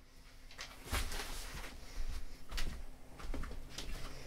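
Handling noise: a scattered series of soft thumps and knocks with rustling, about half a second to a second apart, over a faint steady hum.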